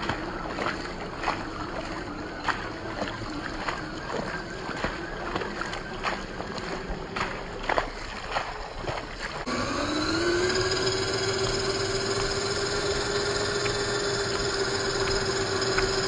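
Rain and splashing water with scattered sharp ticks, under the faint whine of a 1/10-scale RC crawler's 540 brushed electric motor. A little over halfway through, a louder motor whine rises in pitch and then holds steady, over the hiss of water spray from the tyres.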